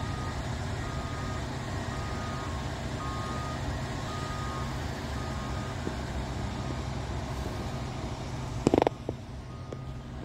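A wheel loader's backup alarm beeping repeatedly, about once a second, and stopping about five seconds in, over a steady low rumble. A few sharp knocks come near the end.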